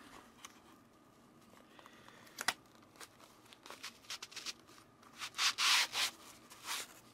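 Packaging being handled and rubbed while the signed plaque is unwrapped: scattered small clicks, a sharp tap about two and a half seconds in, and a louder sliding rub lasting about a second later on.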